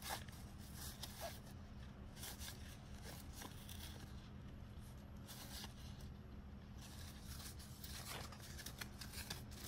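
Faint rustling and soft flicks of a stack of Teenage Mutant Ninja Turtles cardboard trading cards being sorted and shuffled by hand, over a steady low hum.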